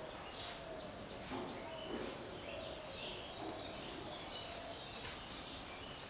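Outdoor birdsong ambience: scattered short chirps and quick falling calls from birds, over a steady high-pitched insect drone.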